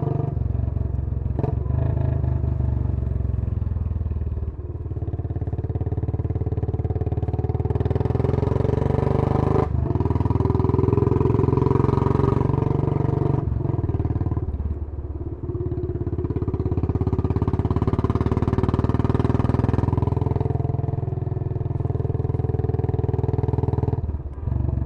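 Royal Enfield Bullet 500 single-cylinder four-stroke running under way through a Punjab Long Bottle exhaust, with its deep thumping note. The note rises and falls with the throttle and dips briefly several times.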